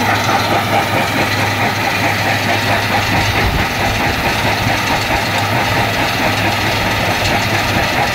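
Stone crusher plant running: a steady engine drone with dense mechanical noise over it, unbroken throughout.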